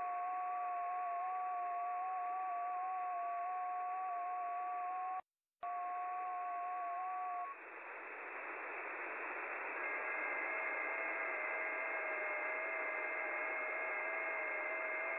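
Shortwave receiver audio on the 12-metre band: hiss with several FT8 digital signals, each a steady tone stepping slightly in pitch. The sound cuts out completely for a moment about five seconds in. The signals end about seven and a half seconds in, the hiss dips and swells back, and a new set of FT8 signals starts about ten seconds in, at the next transmit period.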